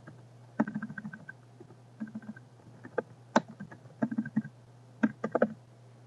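Computer keyboard being typed on: short runs of quick key taps with brief pauses between them.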